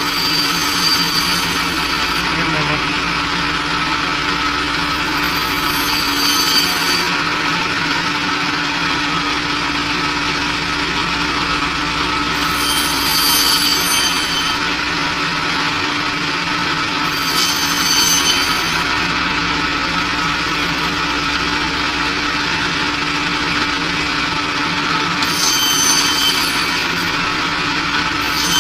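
Meat band saw running steadily with a constant motor hum, while a blade slices pork hind leg. Every few seconds, five or six times, a higher ringing whine rises for a second or two as the blade passes through the meat and bone.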